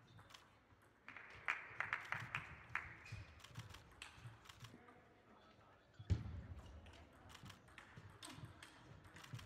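Table tennis rally: the ball clicks back and forth off the rackets and the table in quick, irregular hits, with a louder thump about six seconds in.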